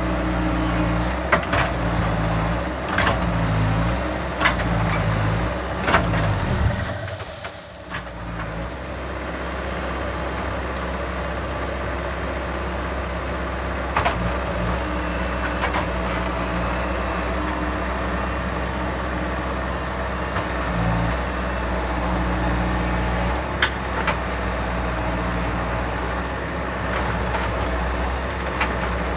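Bobcat skid steer's diesel engine running under load as it works a tree with its grapple claw, its pitch shifting in the first seven seconds and then holding steady, with a few sharp knocks.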